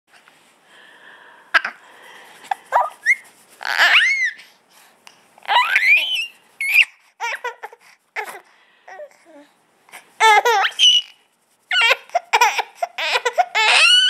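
Baby laughing while being tickled, in short high-pitched bursts of laughter with pauses between them. Near the end the bursts turn into quick runs.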